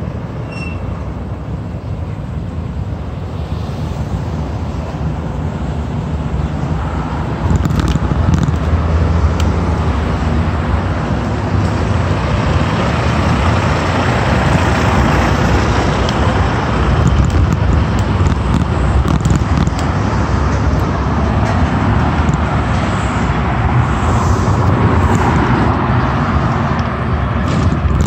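Street traffic noise heard while cycling along a city road: a steady rumble with a wide haze above it, growing louder about seven seconds in and staying up.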